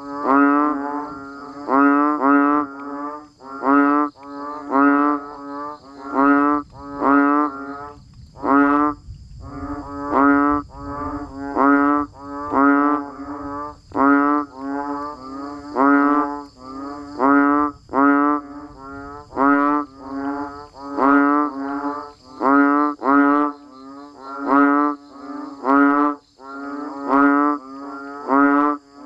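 Banded bullfrogs (Asian painted frogs) calling in chorus: pitched calls about half a second long that rise in pitch, repeating about once a second with overlapping callers. A steady faint high-pitched whine runs underneath.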